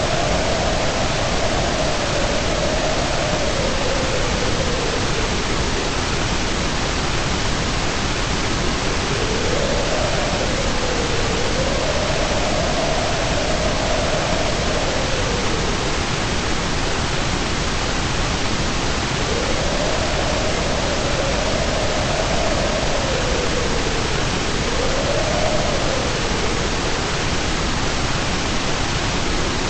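Steady, unbroken white-noise hiss at an even level. A faint tone underneath slowly wavers up and down in pitch every few seconds.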